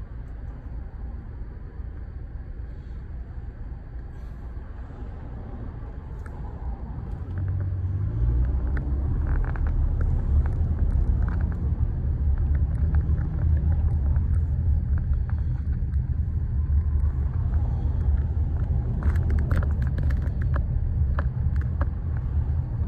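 Car engine and road rumble heard from inside the cabin. It grows louder about eight seconds in, with a brief rise in engine pitch as the car picks up speed, and there are scattered light clicks.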